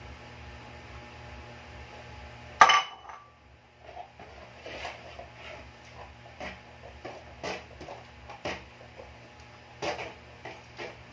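A loud clattering knock with a brief metallic ring about three seconds in, then a run of lighter knocks and clinks of household objects being handled, over a low electrical hum.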